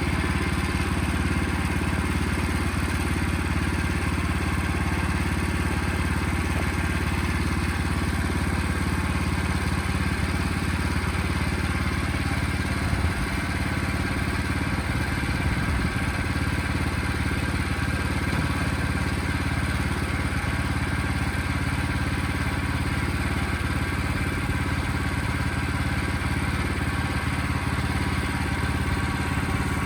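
Portable sawmill's engine running steadily at an even pitch.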